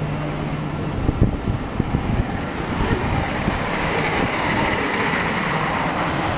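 Street traffic on a wet road: a low hum at first, then a swelling hiss of tyres on wet pavement as a car passes. A few sharp knocks come about a second in.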